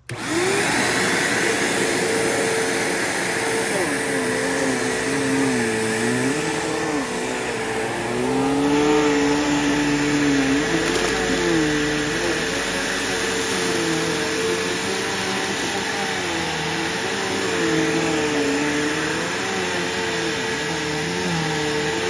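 Bissell Powerforce Bagged 3525-2 upright vacuum cleaner switching on right at the start, then running over a rug. It makes a steady, loud hum with a lower tone that wavers up and down.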